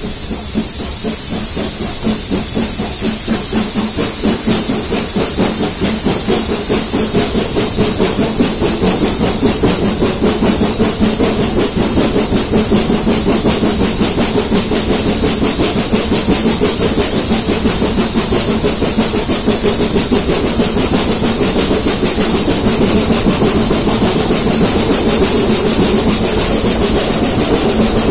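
Steam locomotive hauling its train, heard from a carriage window behind it: rapid, even exhaust beats over a steady hiss and running noise from the wheels on the rails, growing slightly louder through the first few seconds.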